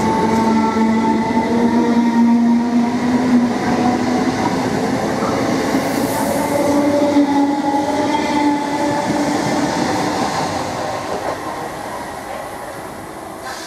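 Greater Anglia electric multiple unit moving off along the platform, its traction motors whining in held tones that step up in pitch over the rumble of the train. The sound fades over the last few seconds as the train draws away.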